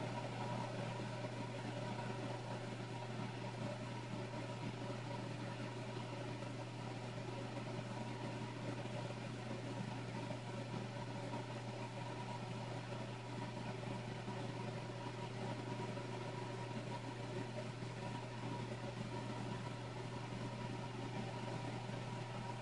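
Steady low machine hum with a few faint steady higher tones over a light hiss, unchanging throughout.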